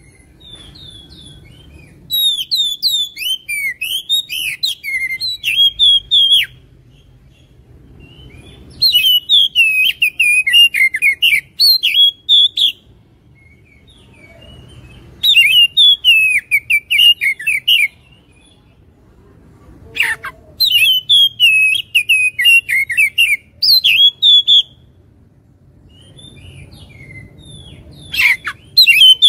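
Oriental magpie-robin (kacer) singing in five bouts of fast, varied whistled phrases, each a few seconds long with short pauses between. It is a lure song of the kind played to provoke caged magpie-robins into answering and fighting.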